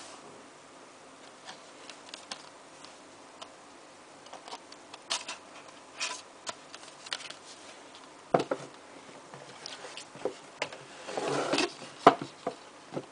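Cardboard DVD sleeves and a printed insert being handled: scattered clicks, taps and paper rustles, with a knock about eight seconds in and a short scraping slide of card near the end.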